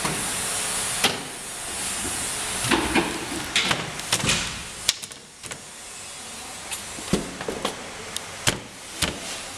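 Scattered hollow knocks and clacks of bamboo poles and slats being handled and fitted on a bamboo bar frame, over a background hiss.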